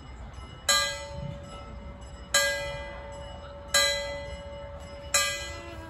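Railroad crossing signal bell ringing, struck four times at a slow, even pace of about one strike every second and a half, each strike ringing out and fading. It is the crossing warning that a train is approaching.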